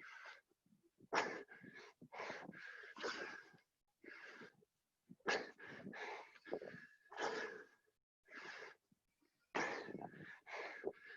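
Heavy, rapid breathing and gasping from hard exercise during burpees. The breaths come in quick runs of two to four with short pauses between.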